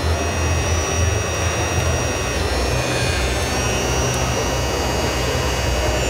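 Steady motor whine and low hum from radio-controlled model construction machines at work, led by the model Cat excavator digging. The high whine shifts in pitch every second or so as the machine changes movement.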